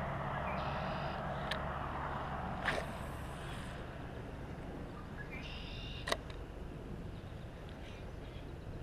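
Steady low traffic rumble from a road bridge, with a broader noise fading out a few seconds in. Two short animal calls break in, one about a second in and one past the middle. A few sharp clicks come from the fishing tackle, the loudest a little past the middle.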